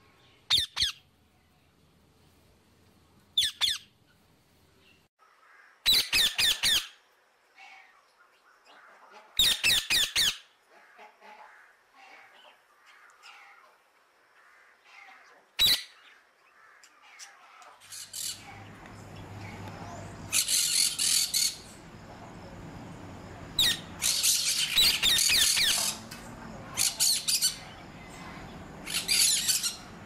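Parrots squawking: loud, harsh calls in short bursts. They come a few seconds apart at first, then more often over a steady outdoor background in the second half.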